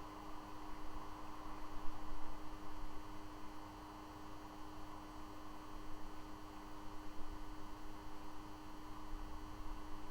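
A steady, unchanging electrical tone over a constant hiss and an uneven low rumble: the background noise of an outdoor wildlife live cam's microphone.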